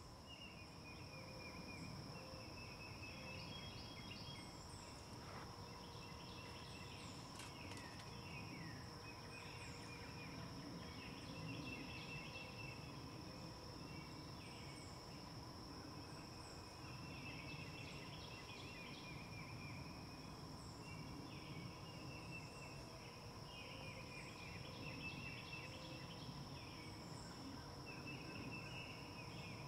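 Faint outdoor ambience: short chirping bird phrases repeating every few seconds over a steady high-pitched insect drone, with a low rumble underneath.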